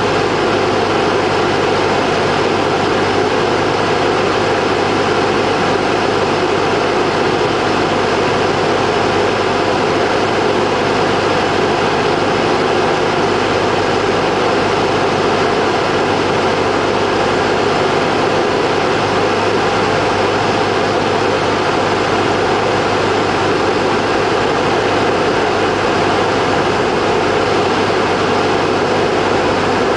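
Cessna 172P's four-cylinder Lycoming engine and propeller running steadily in flight, heard from inside the cabin as an unchanging drone.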